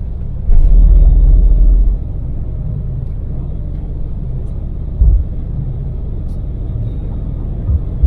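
Daewoo Damas microvan's LPG three-cylinder engine and tyre noise heard from inside the cabin while cruising, a steady low rumble. A heavy low thump lasts about a second and a half near the start, and two short low thumps come later.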